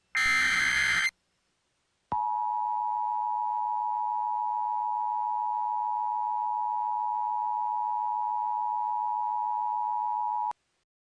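Emergency Alert System signalling: a one-second screech of SAME header data, then, after a second's pause, the steady two-tone EAS attention signal (853 and 960 Hz together), held for about eight seconds and cut off abruptly. It marks the start of a new emergency alert broadcast.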